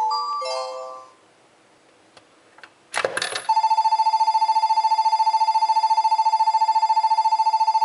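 Toy Yamanote Line train coin bank playing station sounds: the last notes of a chime melody end about a second in, a coin clatters into the bank about three seconds in, and then a loud electronic departure bell rings as a steady, rapidly pulsing trill for about six seconds.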